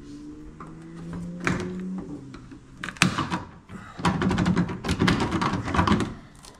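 Screwdriver prying the stock taillight off a 1954 Chevrolet's rear fender: sharp clicks at first, then a loud run of rapid scraping and cracking from about four to six seconds in. The light is held on with silicone and is stuck fast.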